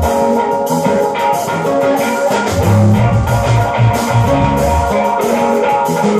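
Live instrumental rock played by a trio on electric guitar, keyboard and drum kit, over held chords and cymbals. Strong low bass notes come in about halfway through.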